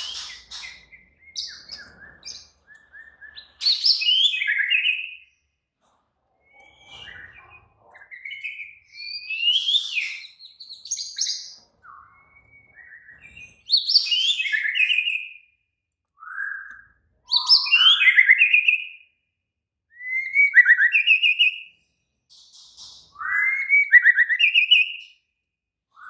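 White-rumped shama (murai batu) singing agitated, fighting-mood song: loud phrases of varied whistles and fast trills, each a second or two long, separated by short pauses. This kind of song is played to provoke other shamas into singing.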